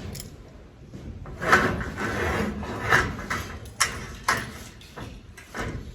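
Steel parts being handled: scraping and sliding of metal on metal, followed by a few sharp knocks.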